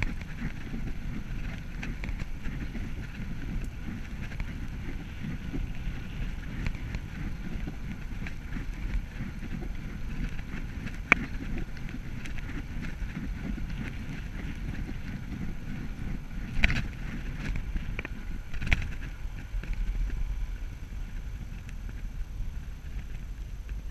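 Bicycle rolling steadily along a tarmac path: tyre noise and wind on the microphone. A few sharp knocks come through, one near the middle and two more later, close together.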